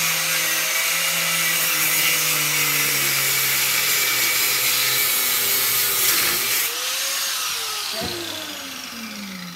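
Corded angle grinder running at full speed and cutting into the metal fitting of a BBQ gas regulator held in a vise: a steady high whine over a grinding hiss. About seven seconds in the cutting stops and the motor winds down, its pitch falling.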